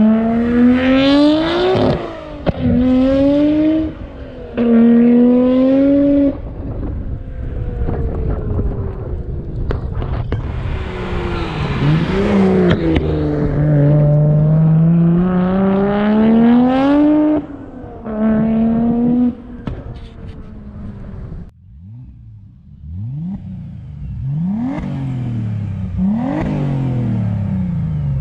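Twin-turbo six-cylinder performance car engine pulling hard through the gears, the revs climbing and dropping sharply at quick upshifts about 2, 4 and 6 seconds in, then a long rising pull. Near the end it lifts off and gives several short rev blips.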